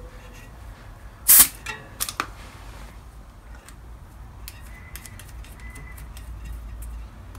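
A short, sharp hiss of air about a second in as the tyre inflator's chuck is pulled off a bicycle tyre valve, followed by two clicks; then light clicks and taps of fingers working at the valve.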